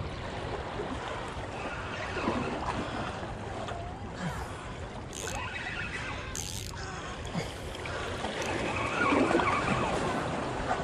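Seawater lapping and washing against shoreline rocks, a steady wash with wind on the microphone; two short hissing splashes come about halfway through.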